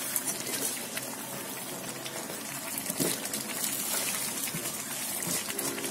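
Washed, wet rice poured from a plastic colander into a pot of tomato sauce and pushed out by hand: a steady rushing pour of grains, full of small ticks.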